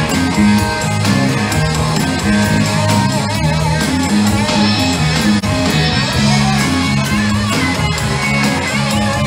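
Live rock band playing an instrumental stretch with electric guitars, bass and drums and no singing.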